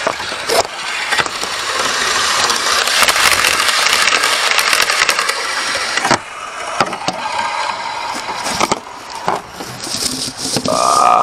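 Model railway locomotive running past close to a track-level microphone: a dense rattling motor-and-wheel noise builds, is loudest about 3 seconds in, and falls away after about 6 seconds. Scattered knocks and clicks follow.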